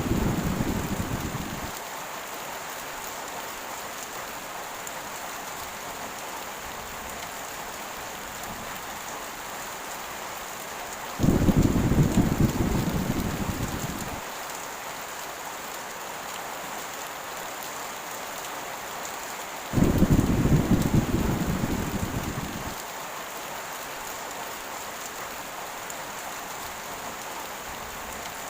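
Heavy rain hissing steadily. Low rumbles of thunder break in three times: one fading out in the first two seconds, then one about 11 seconds in and one about 20 seconds in, each starting suddenly and dying away over about three seconds.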